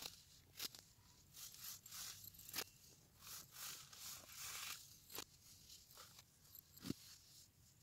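Pressed baking soda blocks crumbling under the fingers: irregular soft crunches and grainy rustling of powder, broken by a few sharp snaps, the loudest near the end.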